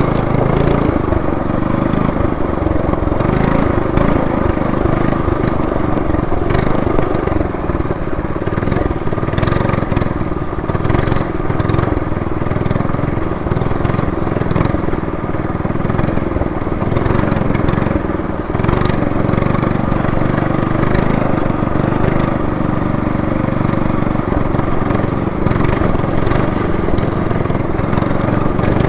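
Trailmaster MB200 minibike's small single-cylinder four-stroke engine running steadily as it rides along, with scattered clicks and knocks.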